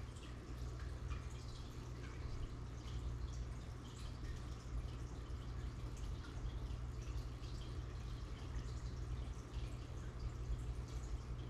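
Aquarium filter water trickling and bubbling at the surface, a steady patter of small drips and splashes over a continuous low hum.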